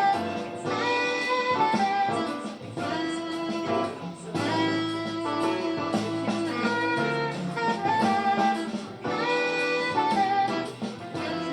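Music from a backing track with guitar, held melody notes moving over a steady bass.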